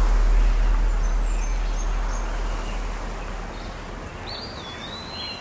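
Outdoor street ambience: a steady noise with a low rumble that fades gradually, with birds chirping faintly, more clearly near the end.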